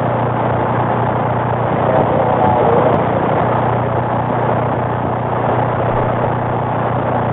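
AM CB radio receiver audio with no one talking: steady static hiss with a low, steady hum underneath, as from a keyed-up transmission carrying engine or electrical hum.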